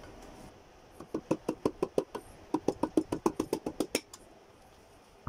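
Rapid tapping of a hammer handle on the crown of a piston, driving it through a ring compressor into the cylinder bore of a Toyota 1NZ-FE engine block. About twenty quick knocks come over three seconds, with a brief pause in the middle.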